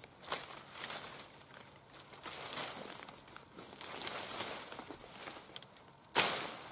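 Leafy rose bramble rustling and crackling as a Fiskars XA23 brush hook is hooked and dragged through it, with one sudden, much louder swing cutting into the brush about six seconds in.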